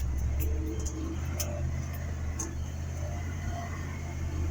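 Logging truck engine running at a steady low rumble, with a few faint clicks and rattles over it.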